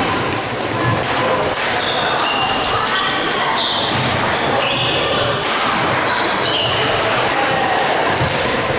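Badminton rally: sharp racket strikes on the shuttlecock and short high squeaks of shoes on the court floor, several times over, with more play and voices from neighbouring courts throughout.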